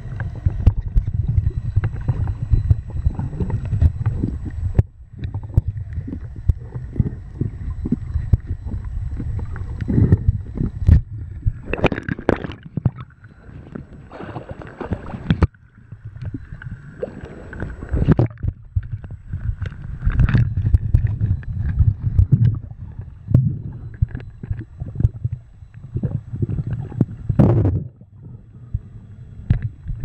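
Muffled water sloshing and rumbling around a camera held underwater, with several louder splashes and bubbling in the second half.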